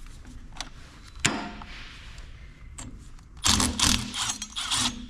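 Ratchet working the bolts out of a differential cover: a sharp metal click about a second in, then a burst of ratcheting and clinking metal between about three and a half and five seconds in.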